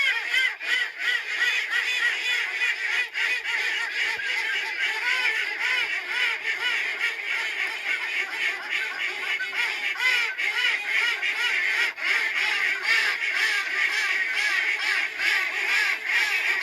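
A flock of ducks quacking, many birds calling at once in a dense, unbroken chorus of overlapping short calls.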